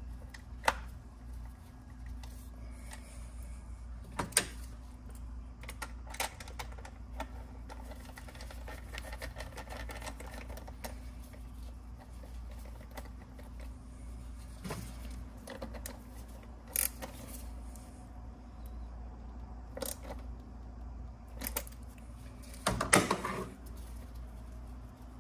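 Hand tools working on a spark plug in a BMW B58 engine: intermittent clicks and metal clinks of a ratchet, socket and extension, over a steady low hum. The loudest clatter comes near the end.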